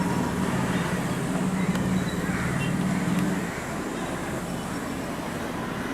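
Steady low motor-vehicle hum with traffic noise, easing off about three and a half seconds in.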